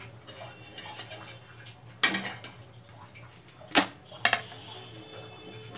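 Metal spatula clattering against an iron tawa and kitchen ware: three sharp knocks, about two, four and four and a half seconds in, the first with a short scrape after it.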